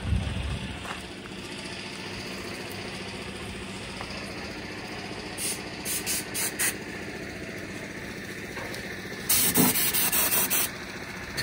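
Compressed-air blow gun blasting dust out of a Deutz-Fahr 5125 tractor's engine bay: four short hissing bursts of air past the middle, then a longer, louder blast of about a second and a half near the end. A steady engine hum runs underneath, with a brief low thump at the very start.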